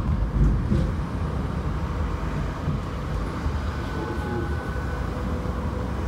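Tram running on its rails: a steady low rumble, with a faint high tone coming in about halfway through.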